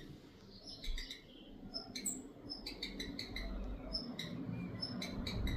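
A redstart giving short, high, squeaky call notes, repeated many times at irregular intervals. A low rumble grows louder toward the end.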